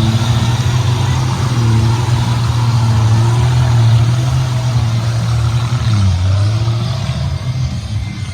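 4x4 off-road vehicle's engine running hard on an off-road course, its pitch holding steady, then dipping about six seconds in and picking up again.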